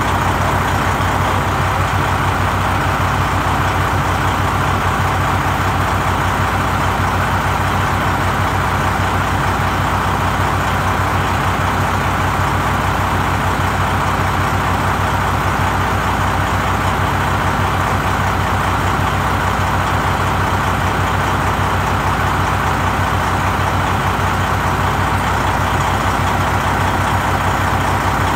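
Milwaukee impact wrench with a 29 mm socket hammering steadily and without letup on a nut of a truck's lower shock mount bracket: the rapid, even rattle of an impact gun working at a tight nut that has not yet broken free.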